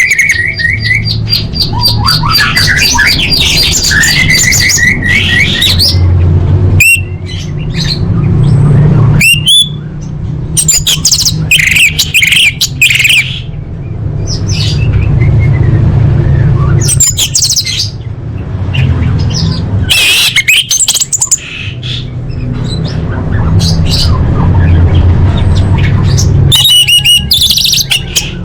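Orange-headed thrush (anis merah) calling: a quick series of repeated whistled notes in the first few seconds, then scattered harsh squawks and sharp chattering calls. A steady low hum runs underneath.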